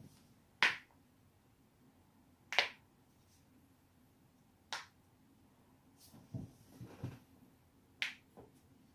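Human joints cracking: five sharp pops a second or two apart, the loudest about a third of the way in, the last two close together. Softer low thuds and rustling come just before that final pair.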